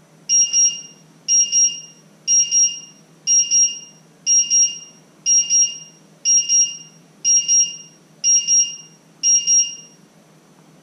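Digital kitchen timer going off: ten high-pitched double beeps, about one a second, then it stops.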